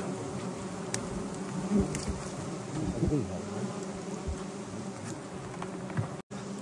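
A swarm of wild honey bees buzzing steadily around a honeycomb being harvested, with a few bees flying close past and their pitch bending as they go. The sound cuts out for a moment near the end.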